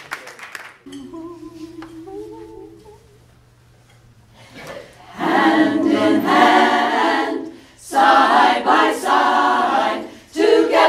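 Mixed choir of men's and women's voices singing a cappella, starting about halfway through and going in phrases with short breaths between. Before it, the last of the applause fades and a few quiet held notes sound.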